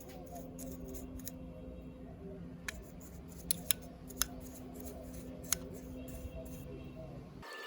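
A few sharp, separate clicks over a steady low hum, typical of hand work with small tools in a workshop.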